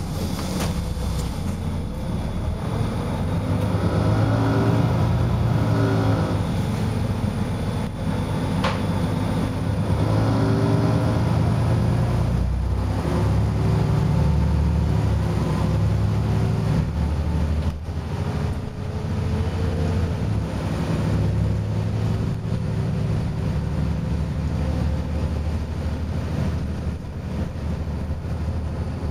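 Volvo B7RLE bus's diesel engine heard from inside the saloon while driving. The engine note climbs several times as the bus accelerates, then settles to a steadier run, with a single sharp knock near the middle.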